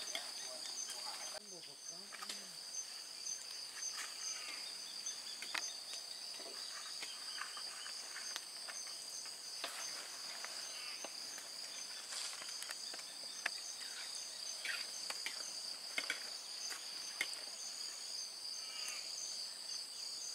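Night chorus of forest insects: a steady, high-pitched ringing of several overlapping tones that does not let up, with a few faint scattered clicks and calls beneath it.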